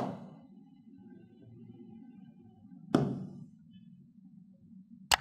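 Knocks and a click from a marker being handled at a whiteboard: one knock right at the start, another about three seconds in, and a short sharp click near the end, over a low steady hum.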